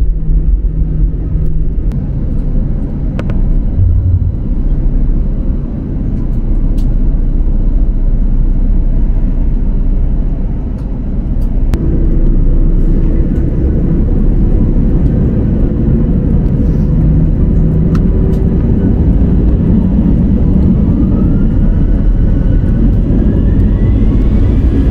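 Airbus A320's CFM56 engines and rolling gear heard from inside the cabin while taxiing: a loud, steady low rumble. Near the end a thin whine rises as the engines spool up on the runway.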